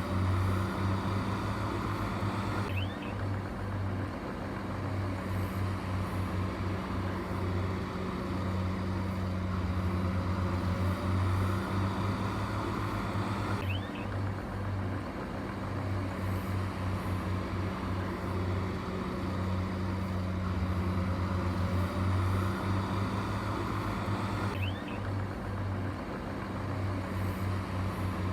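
Heavy diesel engine running steadily, a deep pulsing hum with no revving. The sound repeats about every eleven seconds.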